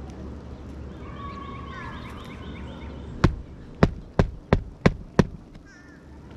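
Six sharp hammer strikes in quick succession, starting about three seconds in, as a nail is driven into a roof shingle. A bird chirps in the background before the strikes.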